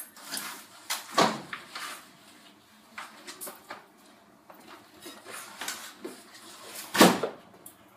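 Scattered knocks and clatters, with two louder sharp thumps, one about a second in and one near the end.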